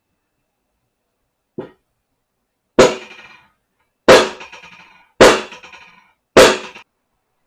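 A light tap, then four hard strikes about a second apart, each ringing briefly: a hammer striking metal.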